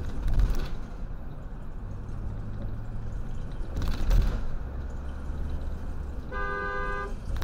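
Road and engine noise from a truck driving at highway speed, with two heavy thumps, one just after the start and one about four seconds in. Near the end comes a short two-note vehicle horn blast.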